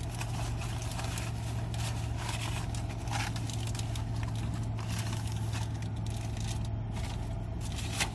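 Steady low hum of a car's running engine heard inside the cabin, with faint rustling and small clicks of food being handled.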